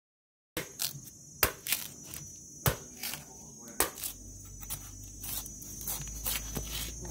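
Machete chopping and shaving the husk off a young green coconut: a series of sharp chops at irregular intervals, with insects chirping steadily behind.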